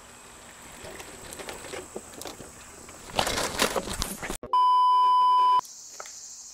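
A loud, steady electronic beep lasting about a second, coming in after an abrupt cut to silence. Before it there is outdoor ambience with rustling and scuffling on grass, loudest just before the cut.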